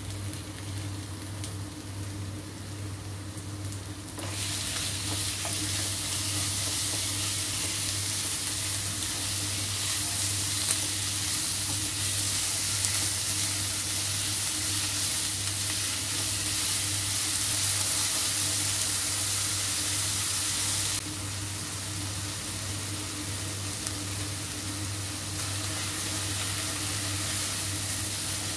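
Sliced pork frying in hot oil with shallots in a nonstick wok, sizzling steadily while a spatula stirs and scrapes it around the pan. The sizzle jumps louder about four seconds in and eases a little later on, over a steady low hum.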